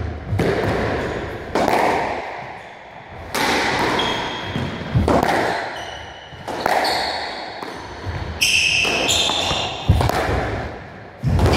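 Squash rally: the ball cracking off rackets and the front wall about every one and a half seconds, echoing around the court. Shoe squeaks on the wooden floor come between shots, loudest in the second half.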